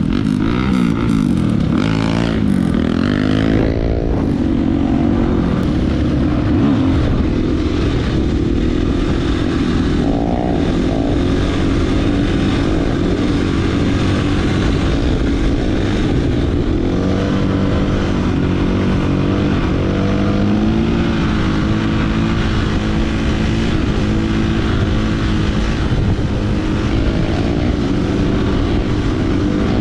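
Dirt bike engine running under way, its pitch rising and falling as the throttle opens and closes, over a steady low rumble.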